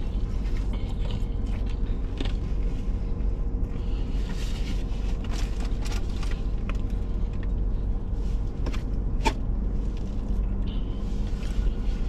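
Steady low vehicle rumble, with a few faint knocks and one sharp click about nine seconds in.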